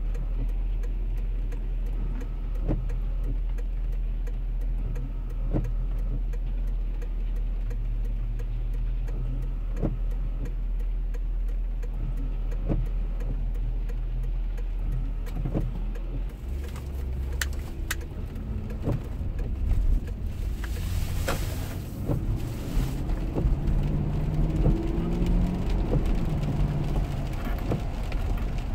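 Inside the cabin of a Lexus LX 470: the 4.7-litre V8 idles steadily while the windshield wipers sweep with a click about every three seconds. About halfway through, the SUV pulls away and accelerates, the engine note rising, with a spell of tyre and spray hiss from the wet road.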